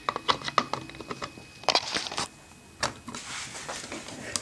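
A plastic Raspberry Pi TNC case being handled as its top is fitted back on: a string of sharp plastic clicks and knocks, a louder cluster about two seconds in, then a soft scraping rub near the end.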